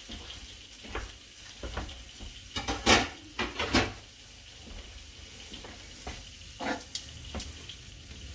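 Moose round steaks searing in a hot frying pan with a steady sizzle. Several sharp clinks and knocks of dishes cut through it, the loudest about three seconds in.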